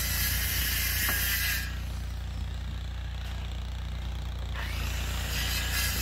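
Circular saw running and cutting through lumber boards, with a high-pitched whine. It stops about a couple of seconds in and starts cutting again near the end, over the steady drone of an idling engine.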